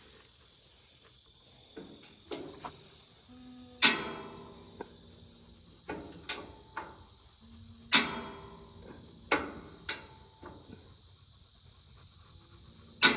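A string of sharp clicks, about five loud ones among fainter ones, each with a short metallic ring: the 22-inch Blackstone griddle's igniter being pressed again and again while the burner fails to light.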